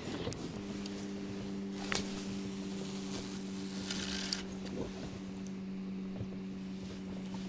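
A cast with a spinning rod: fishing line hisses off the reel's spool for about two and a half seconds, with a click as it starts and a sharp click as it stops. Under it runs a steady low hum.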